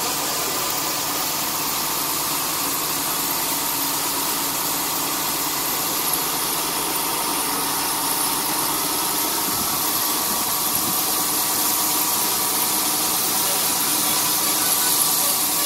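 Tata 3118 tipper truck's diesel engine running steadily while its hydraulic hoist raises the tipper body to dump a load of stone chips.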